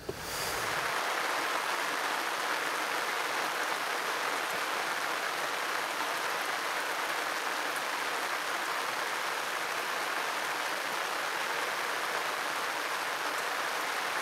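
Steady rain falling, an even hiss that starts abruptly and holds without change.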